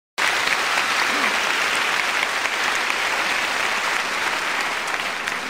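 Audience applauding steadily in a large hall. The clapping cuts in suddenly just after a brief moment of silence.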